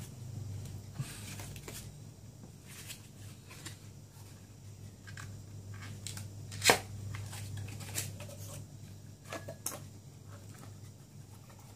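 Cardboard box of a McDonald's promotional glass being handled and opened, with scattered rustles and scrapes and one sharp click about seven seconds in. A steady low hum runs underneath.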